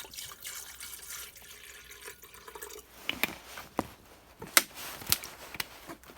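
Water running into an electric kettle as it is filled, followed in the second half by several sharp clicks and knocks.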